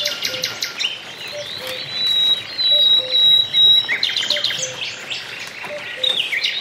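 Several small birds chirping and trilling at once, with one high, steady whistled note held for about two seconds in the middle. Under them, a faint low two-note call repeats about every second and a half.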